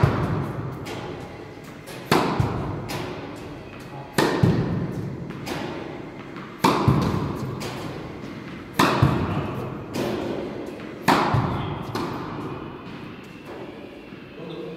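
Tennis balls struck hard with rackets on serves: about six sharp hits roughly two seconds apart, each ringing out in the echo of a large indoor court.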